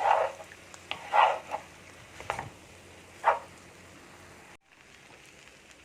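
A spatula stirring and turning fried rice in a pan, mixing it with the vegetables and egg: four short scrapes about a second apart, then a quiet stretch.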